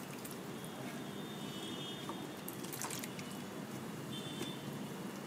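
Water trickling and dripping faintly into a bowl of rice and urad dal flour, with a few light clicks.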